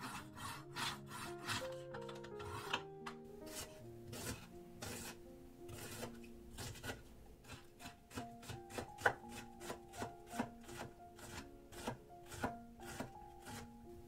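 A chef's knife drawn again and again through a pull-through knife sharpener, a run of rasping strokes. Then, from about halfway, quick knife chops on a wooden cutting board as a garlic clove is cut, over soft background music.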